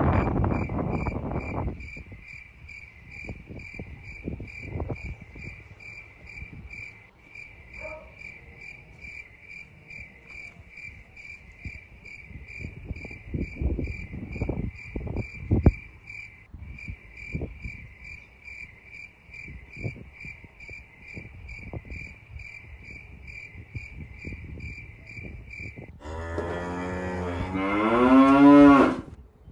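Footsteps and rustling as someone walks across a backyard lawn holding the camera, under a steady high pulsing chirp of about three pulses a second. Near the end a loud, drawn-out call wavers in pitch for about three seconds.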